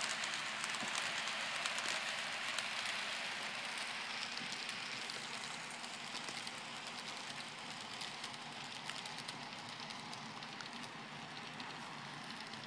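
HO-scale model diesel locomotive with no sound decoder running on the track: a steady hiss from the small motor, gears and wheels on the rails, flecked with faint clicks, slowly growing quieter.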